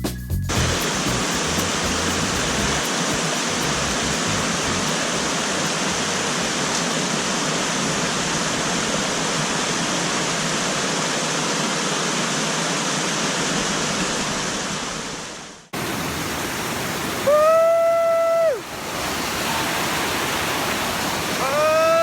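Steady rushing water, like a mountain stream or waterfall. It breaks off abruptly about two-thirds of the way through and is replaced by another, similar stretch of rushing water. In that second stretch a short held pitched tone sounds once, for about a second and a half.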